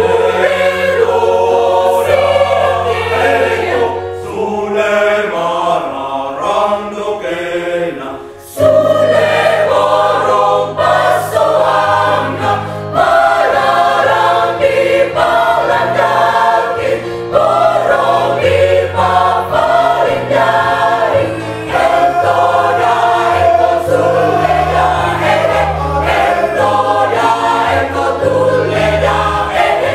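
Mixed choir of women's and men's voices singing in parts. About eight seconds in the sound briefly drops, then a fuller, louder passage begins.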